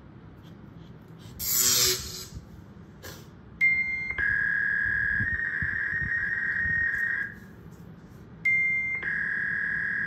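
A short hiss, then an electronic tone sounding twice. Each time a brief higher beep steps down to a long, steady lower tone; the first lasts about three seconds.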